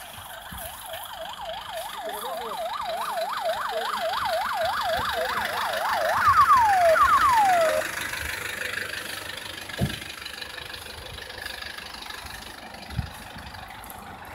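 Ambulance siren in a fast yelp, its pitch rising and falling about three times a second and growing louder, then switching to a few slower falling wails before it cuts off about eight seconds in. A single thump follows a couple of seconds later.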